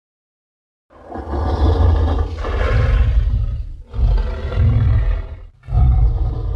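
Sound-designed roars of the fictional hybrid dinosaur Indolyth, layered from big-cat and movie-monster recordings. After a second of silence come three deep roars: a long one of about three seconds, a shorter one, and a third starting near the end.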